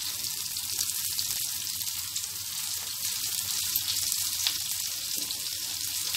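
Soybean and chana dal kebab patties shallow-frying in a little oil on a flat non-stick tawa: a steady high sizzle with fine crackles as the first side cooks.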